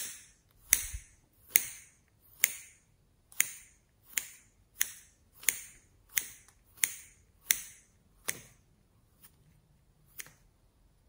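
Scissors snipping through a piece of soft modelling clay: about a dozen crisp snips, roughly one every 0.7 seconds, the last two fainter, stopping about ten seconds in.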